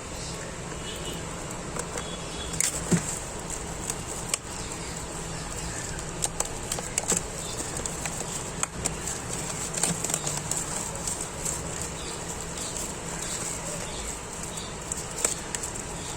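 Plastic shrink-wrap seal on a trading-card box being torn and peeled off: irregular crinkles and sharp snaps of plastic, scattered through the stretch, over a steady background hiss and hum.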